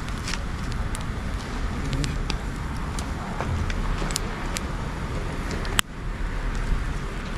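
Wood bonfire of dried logs and branches crackling, with scattered sharp pops and a louder snap about six seconds in, over a steady low rumble of wind on the microphone.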